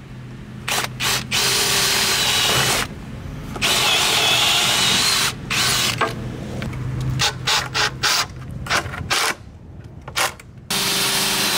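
Cordless drill boring pilot holes into hardwood pallet timber in several runs of one to two seconds, its pitch wavering under load. A string of short trigger blips comes in the middle. A screw is driven in near the end.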